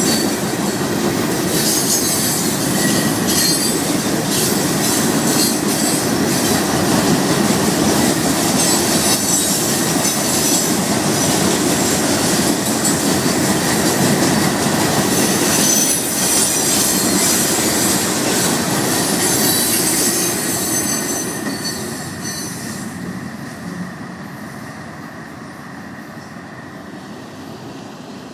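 Loaded rock cars of a freight train rolling past, the wheels squealing and clattering over the rail joints. The sound fades off about three quarters of the way through as the end of the train goes by.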